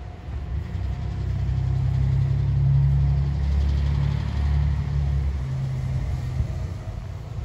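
Engine of a large motor vehicle passing by: a low, pitched rumble that builds over the first couple of seconds, is loudest about three seconds in, then fades away.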